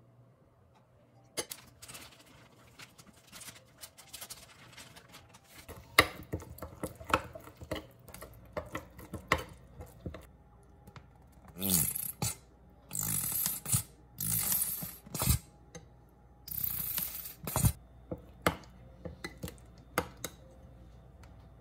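Metal spoon stirring thick chili seasoning paste in a bowl: scattered clinks and taps of the spoon against the bowl, then, about halfway through, a run of longer scraping strokes.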